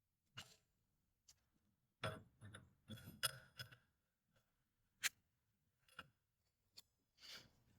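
Metal parts of a CV axle joint clicking and clinking as they are handled and fitted back together on the shaft, with a cluster of clinks about two to four seconds in, one of them ringing briefly.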